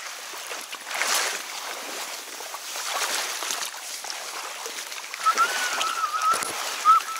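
Reed stems rustling and swishing, with water sloshing, as someone pushes through a dense reed bed. A thin wavering whine joins in the last two seconds.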